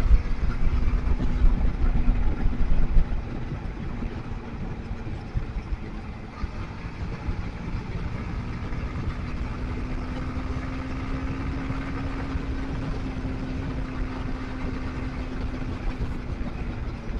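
Motorcycle riding noise from a rider-mounted mic: engine hum with low wind and road rumble, heavier for about the first three seconds and then settling to a steady, quieter drone.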